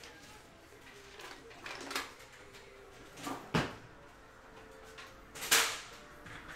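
A few short knocks and handling noises: small bumps early on, a sharp knock about halfway through, and a louder brief swishing burst near the end.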